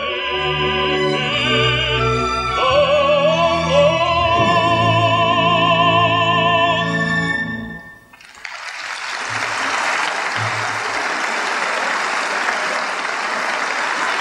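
An operatic bass with orchestra sings a rising phrase up to a long held note with wide vibrato, and the orchestra closes out about eight seconds in. Audience applause breaks out right after and carries on steadily.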